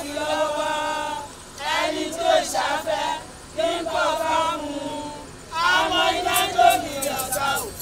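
A group of women chanting together in repeated short phrases, with brief pauses between them.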